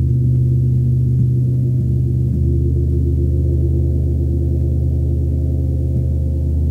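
A 36-inch (90 cm) KI gong rubbed and struck softly with a large soft white mallet, keeping up a steady, sustained low hum. A few gentle strokes renew it: three within the first couple of seconds and another near the end.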